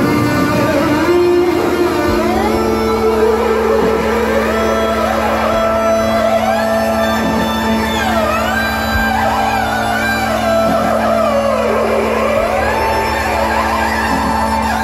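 Live rock band playing a slow instrumental passage: long tones slide smoothly up and down over a steady low drone.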